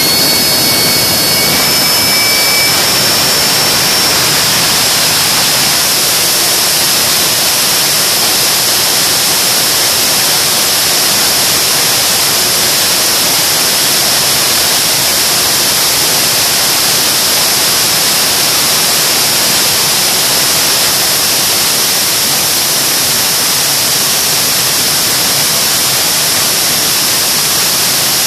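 General Electric J79 turbojet running at high power, a loud steady jet roar. Its high whine climbs in pitch over the first few seconds, then holds steady.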